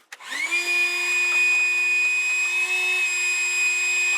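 A small electric motor starts, quickly rises to full speed and runs at a steady, high-pitched whine.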